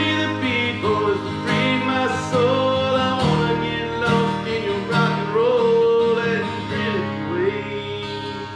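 Steel-string acoustic guitar strummed in steady chords while a man sings along, holding long, wavering notes.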